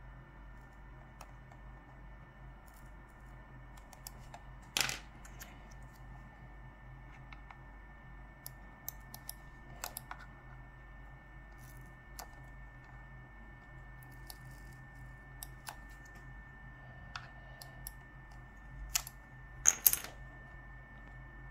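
Scattered small clicks and taps of small plastic parts and tools being handled while a computer mouse is worked on. There is a sharper clack about five seconds in and a quick cluster of clicks near the end, over a faint steady electrical hum.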